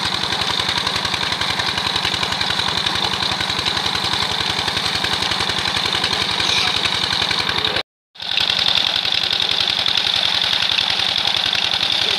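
Tubewell pump engine running steadily with a fast, even beat, over the rush of water gushing from the outlet pipe and splashing into the concrete tank. The sound drops out for a moment about eight seconds in, then the same engine and water go on.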